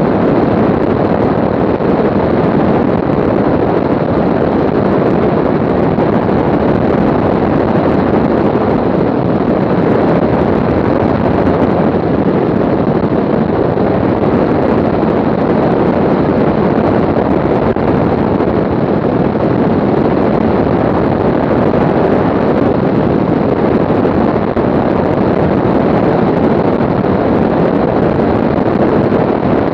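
Aircraft in flight: a steady, unbroken rush of wind and engine noise on the microphone.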